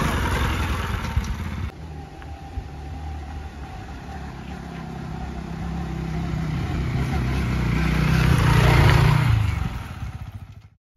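Bajaj Pulsar NS200 motorcycle engine running while riding on the road, with wind and road noise. The engine note drops back about two seconds in, builds steadily to a peak near nine seconds, then dies away to silence just before the end.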